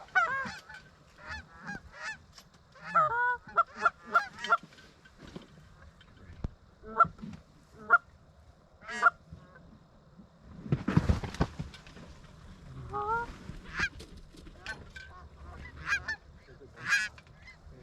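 Canada geese honking and clucking: many short, rapid honks in clusters, with a brief rush of noise about eleven seconds in.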